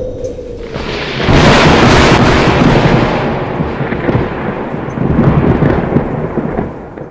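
Thunder sound effect with rain: a loud peal of thunder breaks about a second in, rolls on, swells again around five seconds and dies away near the end.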